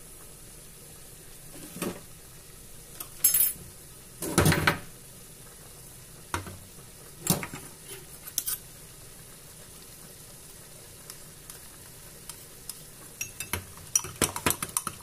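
Chicken and vegetables in tomato sauce sizzling in a frying pan, with a few scattered knocks and clinks of dishes, the loudest about four seconds in. Near the end a quick run of clinks begins: a spoon stirring cornflour into water in a small bowl.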